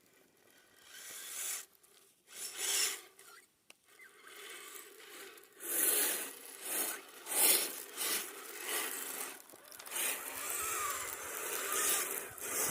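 Radio-controlled crawlers' tracks and tyres scraping and crunching over snow-covered gravel in irregular bursts. A faint electric motor whine rises and falls about ten seconds in.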